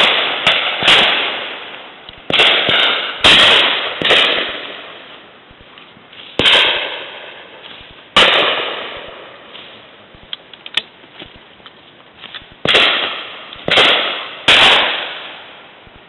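Shotguns firing at driven game birds: about a dozen sharp shots, some close and loud and some further off, each with a long echoing tail. They come in bursts: three at the start, four more over the next few seconds, two single shots, then three near the end.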